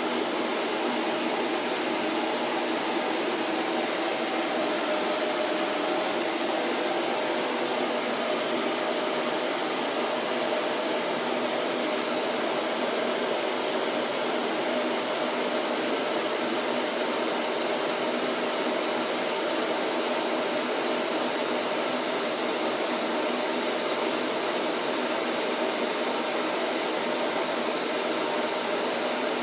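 Vacuum cleaner running continuously: a steady, unchanging motor whir and rush of air.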